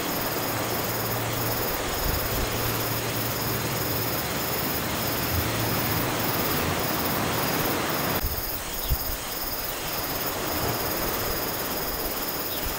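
Steady wind rushing over the microphone at the shore, with a low hum that comes and goes and a faint high drone. The sound changes abruptly about eight seconds in and becomes thinner.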